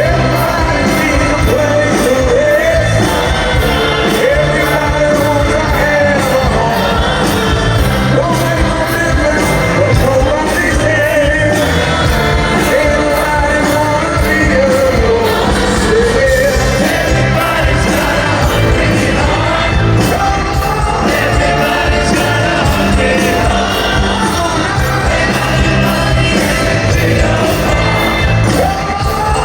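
Live rock concert recorded from the crowd: a band playing loudly with a steady drum beat and a man singing, the crowd shouting along.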